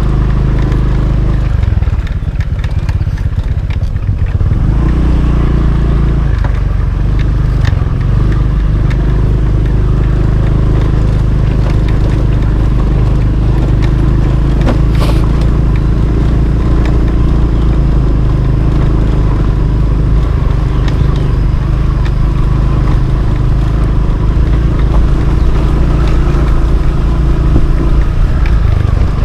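Motorcycle engine running while riding, a steady low note whose pitch shifts about two seconds in and settles again about six seconds in.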